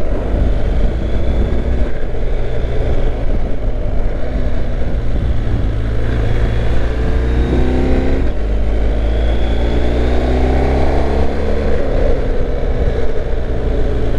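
BMW GS Adventure motorcycle engine running under way, over a steady low rumble of wind on the microphone. The engine note climbs about seven seconds in, drops briefly, then climbs again.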